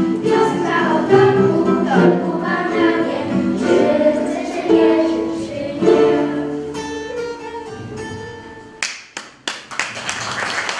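Ukulele ensemble strumming while a group of girls sings a ballad. The song ends on a chord that fades out about eight seconds in, then scattered claps start and build into audience applause.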